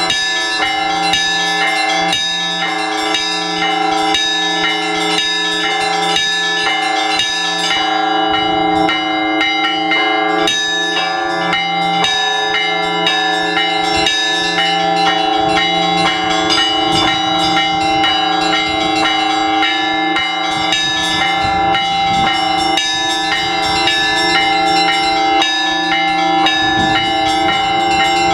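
Russian Orthodox church bells rung by a bell-ringer for the all-night vigil. Many bells of different pitches are struck in quick succession in a continuous peal, with the low tones of the larger bells ringing on underneath.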